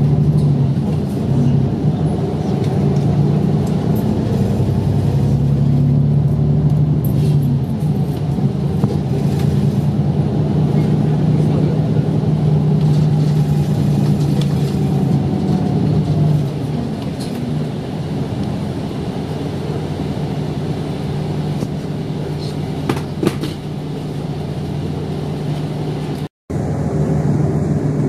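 Inside a Kanto Railway route bus on the move: the engine's steady low hum with road noise, easing slightly about two-thirds of the way through. The sound cuts out for a split second near the end.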